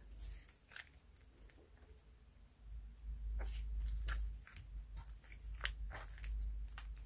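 Clear slime with white clay mixed in, stretched and kneaded by hand, giving sticky clicks and pops that come thicker and louder from about three seconds in.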